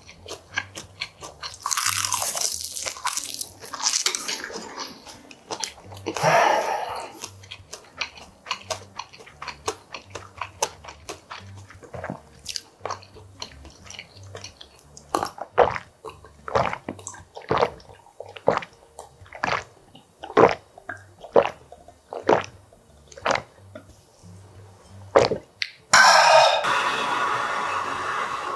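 Close-miked eating: slurps of hot soup broth, then a long run of crisp crunches at about one a second as food is chewed. Near the end comes a long, loud slurp.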